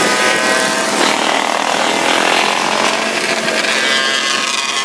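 Dirt bike and quad engines running at speed in a group, heard from on board a following bike.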